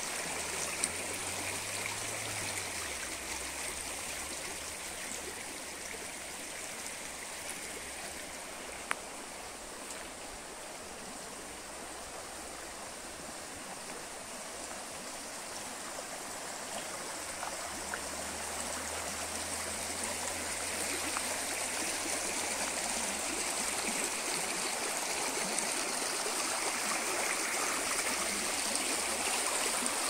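Small, shallow woodland brook rushing steadily over its bed, growing louder toward the end.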